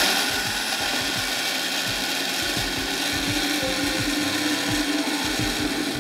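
Electric blender running at full speed, blending chimichurri sauce of parsley, garlic and olive oil into a purée. It switches on abruptly and cuts off near the end.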